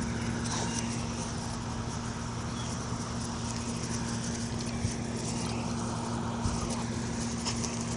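A steady low mechanical hum over a constant background hiss, with a few faint scattered ticks.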